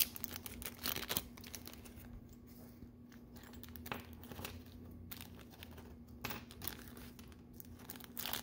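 Small clear plastic parts bag crinkling and rustling in the fingers, with scattered light clicks.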